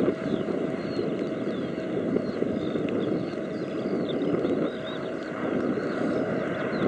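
Boeing 777-200ER's twin turbofan engines at takeoff thrust as the airliner climbs away, a steady rumbling roar with a crackle running through it.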